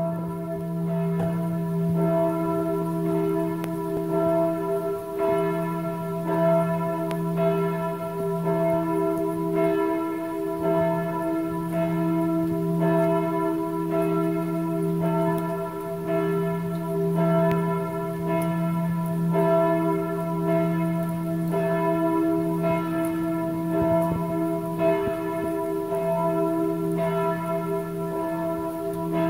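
Church bells ringing in a peal, strikes coming roughly once a second and overlapping over their long sustained ring.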